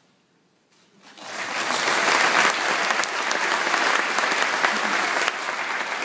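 Theatre audience applauding: clapping breaks out about a second in and keeps going steadily.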